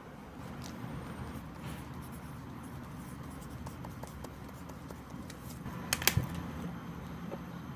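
A pen writing on paper: faint scratching over a steady room hiss. There is a short cluster of sharp clicks about six seconds in.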